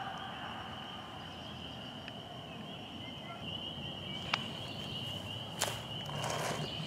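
Steady high-pitched trilling of insects in the grass, with a few sharp clicks and a brief rustle of grass and clothing in the second half.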